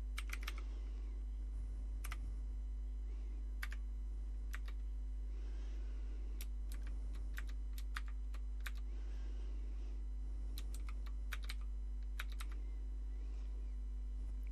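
Commodore VIC-20 keyboard being typed on: irregular key clicks, a few a second with short pauses, over a steady low hum.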